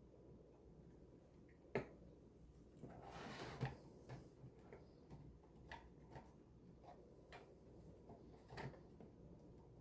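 Scattered small clicks and taps of small model-kit parts being handled, with a sharp click about two seconds in and a brief rustle a second later.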